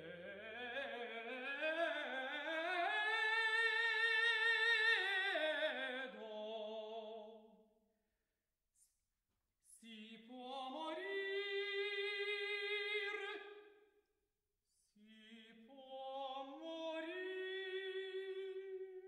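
Operatic tenor voice singing an aria with wide vibrato in three phrases. The first climbs to a loud high note a few seconds in, and the next two each end on a long held note, with short silences between the phrases.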